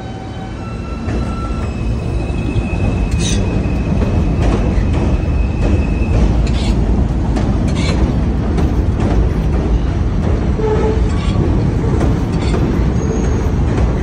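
New York City subway train pulling out of an elevated station, its rumble building over the first two seconds and then running steadily as the cars pass. A steady high whine sounds from about one to six seconds in, and sharp clanks come as the wheels cross rail joints on the steel structure.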